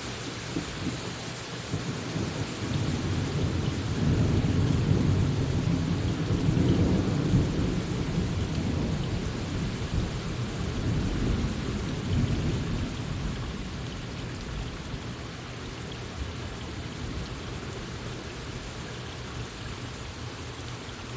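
A long roll of thunder over steady rain. The rumble builds a couple of seconds in, stays loud for several seconds, then dies away about two-thirds of the way through, leaving the rain's hiss.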